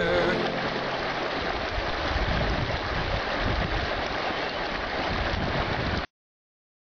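Steady rush of running water that cuts off suddenly about six seconds in.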